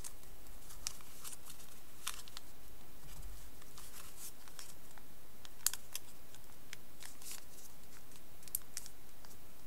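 Coloured origami paper being folded and pressed flat by hand: scattered short crisp crackles and rustles, the sharpest about halfway through.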